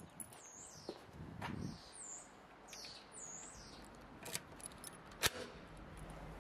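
Small birds chirp repeatedly during the first few seconds. Then come two sharp metallic clicks, about a second apart, as a key turns in a bicycle's frame-mounted ring lock and the lock opens; the second click is the louder.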